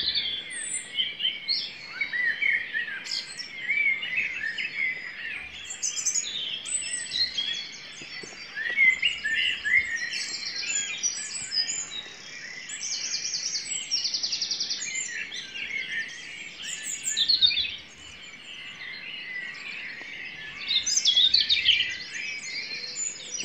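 Dawn chorus of several birds singing at once: European robin and wren songs, the wren's rapid high trills recurring several times, among the whistled phrases of a common blackbird.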